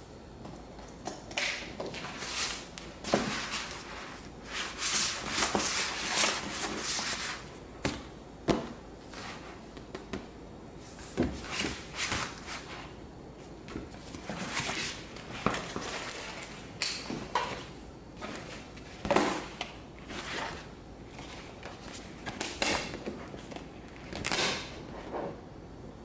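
A large printed vinyl wrap sheet handled on a worktable: irregular rustling and crackling with sliding scrapes as it is smoothed across the surface and lifted, plus a few short sharp knocks.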